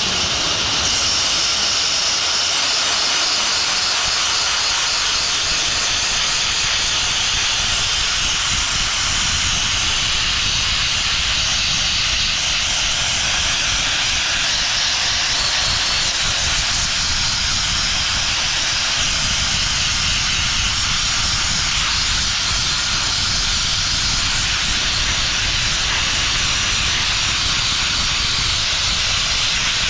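Abrasive blast nozzle running continuously, a loud steady hiss of compressed air and grit striking a truck's steel wheel, stripping rust and paint back to bare steel.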